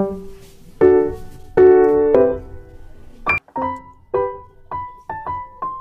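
Background piano music: two full chords, then a run of single notes.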